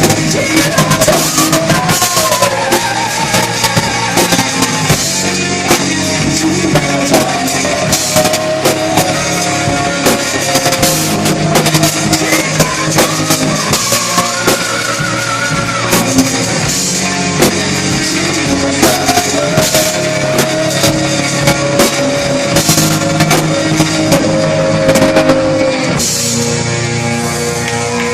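Rock band playing: drum kit, electric guitar and bass under a wavering lead melody line. About two seconds before the end the drumming drops out and held chord notes ring on.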